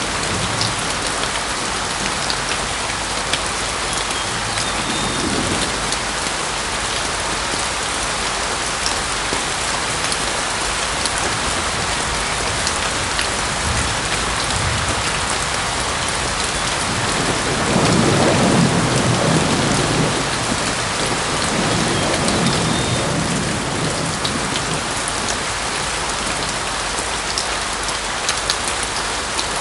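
Steady heavy rain pouring down. About 17 seconds in, a low roll of thunder swells for a few seconds, followed by a softer rumble.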